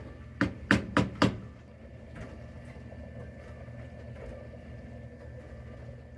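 Four quick, sharp knocks in a row, about a quarter second apart, followed by a steady low hum.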